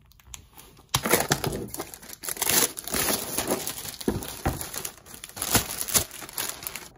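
Clear plastic shrink-wrap being torn open and pulled off a boxed wooden game, crinkling with many sharp crackles, starting about a second in.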